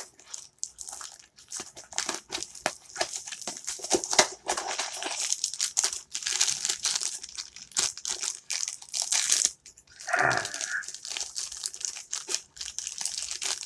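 Blind-box packaging being handled: rapid crinkling and tearing of the foil wrapper around a mystery mini figure. About ten seconds in, a single short dog yelp cuts through the crinkling.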